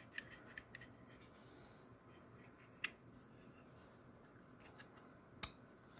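Faint handling noises from a Craftsman folding utility knife: light rubbing and small clicks, with a sharper click about three seconds in and another near the end.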